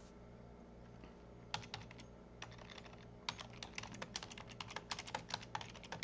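Typing on a computer keyboard: irregular key clicks begin about a second and a half in and come faster from about three seconds in, over a faint low hum.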